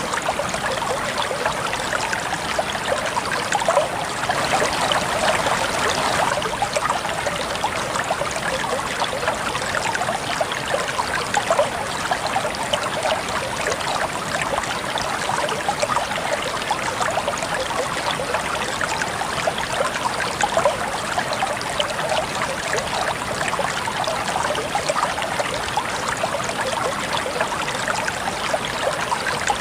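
Shallow river or stream flowing and babbling over rocks, a steady rush of water with many small splashes, a little fuller about four to six seconds in.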